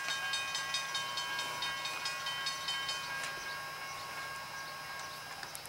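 Railroad crossing bell ringing rapidly, about five strikes a second. The strikes stop about three seconds in and the ringing dies away.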